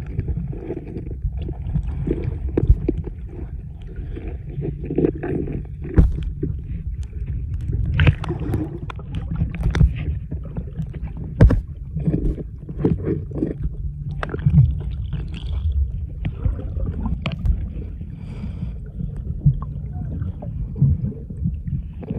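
Underwater audio from a camera held beneath the surface while snorkeling: a steady muffled low rumble of water moving around the camera, with frequent short clicks and knocks.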